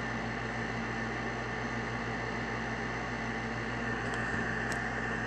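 Steady hiss with a low hum underneath: the room's background noise, with a couple of faint clicks near the end.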